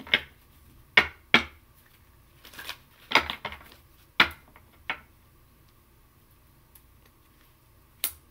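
Tarot cards being handled: a string of sharp snaps and short rustles over the first five seconds, then a few quiet seconds and one more snap near the end.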